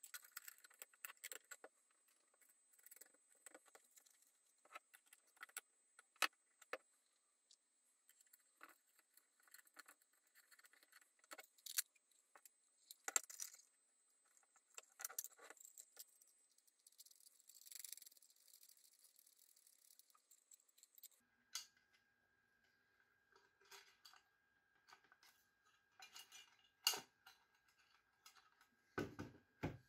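Faint clicks, taps and light metallic rattling as a black aluminium enclosure and its LCD front panel are handled and fitted together by hand, with a few sharper knocks of metal on the work surface.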